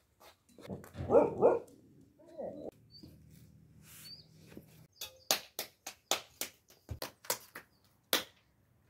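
A dog barks twice about a second in and once more shortly after. Later comes a run of sharp slaps, about three a second, from hands patting a round of bread dough flat between the palms.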